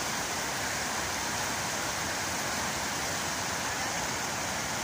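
Steady rush of fast-flowing floodwater running across a road, a strong current that is still rising.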